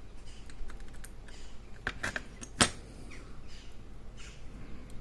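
Small metal clicks and light scrapes as the greasy discs and spacers of a disc-detainer padlock are handled and set down on a tray, with one sharper click about two and a half seconds in.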